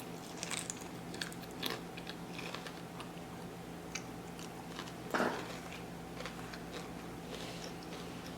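A person chewing nachos close to the microphone, with scattered crunches of tortilla chips in the first couple of seconds and one louder short sound about five seconds in.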